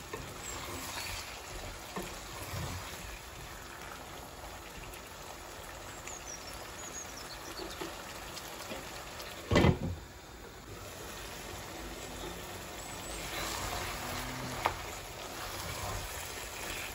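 Bottle gourd curry sizzling gently in a nonstick pot, with a wooden spatula stirring and scraping through it. One loud knock about ten seconds in.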